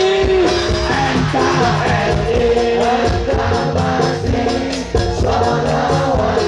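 Live band playing Indonesian sholawat devotional music with singing over a steady beat.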